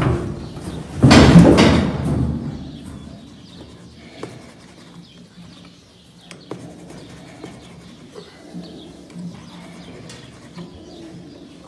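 A loud bang about a second in, then quiet scattered clicks and scrapes of a knife working at the hardened fibre cover on a bull's horn tip.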